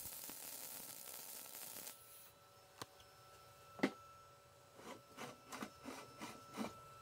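MIG welding arc hissing and crackling for about two seconds on the steel rim of stacked car wheels, then cutting off. Then a sharp metal clank, followed by a run of light knocks and scrapes as the steel wheels are gripped and turned by hand.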